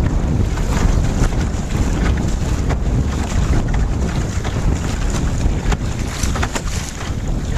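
Strong wind blasting across a smartphone microphone fixed to a small sailboat's gunwale, a loud, constant low rumble, with frequent short splashes of water against the hull as the boat sails.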